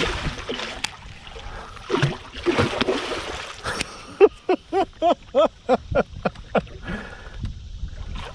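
Water splashing and knocks of gear being handled in a kayak, then a quick run of about nine short squeaks, roughly four a second, each rising and falling in pitch.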